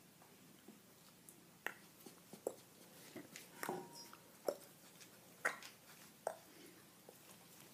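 A puppy playing with an adult dog, pouncing on and mouthing at its face: faint scuffling with about six short, sharp clicks and squeaks spread over several seconds.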